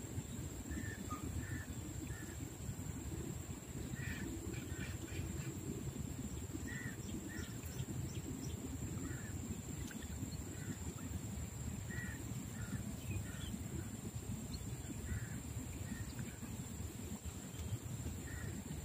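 Birds calling in short, scattered notes over a steady low rumble, with a thin steady high-pitched tone underneath.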